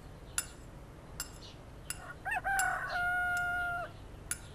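A rooster crowing once, starting about two seconds in: a rising opening and then a long held note that cuts off near the end. A few sharp, light clicks sound before and after it.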